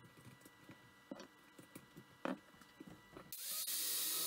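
A few light clicks and knocks, then a little over three seconds in an angle grinder starts up and bites into steel square tubing, giving a loud, steady grinding noise.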